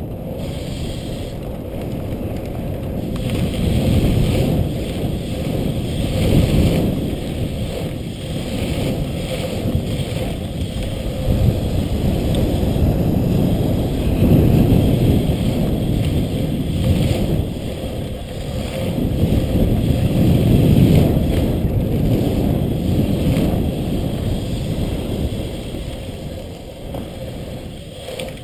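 Wind rushing over a helmet-mounted camera's microphone while riding a bike around a track, mixed with the rumble of tyres rolling on pavement, swelling and fading in waves with speed.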